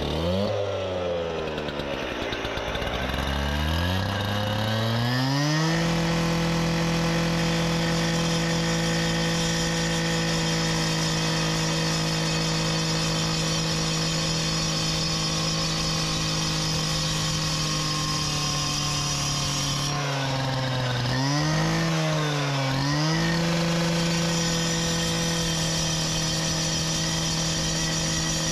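Two-stroke gas cut-off saw running at high revs as it cuts a marble paver. Its revs climb over the first few seconds and then hold steady. About 20 seconds in they dip and recover twice, as the blade bites into the stone.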